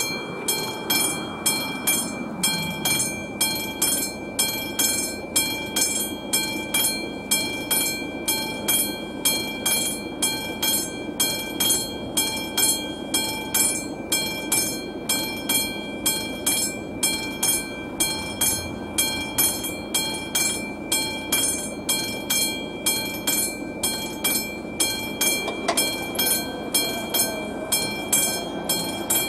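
Classic level-crossing warning bell ringing with steady, evenly spaced strokes, about one and a half a second, signalling an approaching train. Near the end the barrier arms' drive whirs as they lower.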